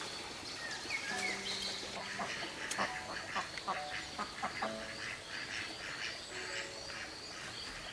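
Ducks quacking: a run of about ten quick quacks in the middle. Soft background music with held notes and small bird chirps runs underneath.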